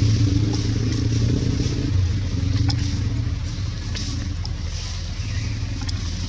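A motor running steadily with a low hum, easing off a little about two seconds in and again about four seconds in.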